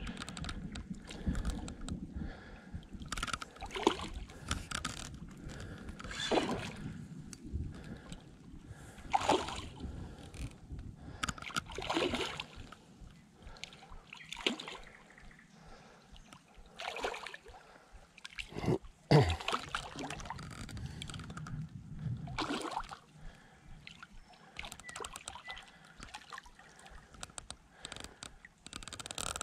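Hooked chub thrashing at the water's surface on a spinning line: a string of irregular splashes a few seconds apart, the loudest a little after the middle.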